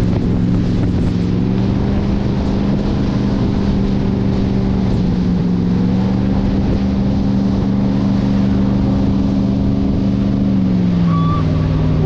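Jet boat engine running steadily at a low, even speed over the rush of water and wind. Its pitch drops a little near the end as the revs come down.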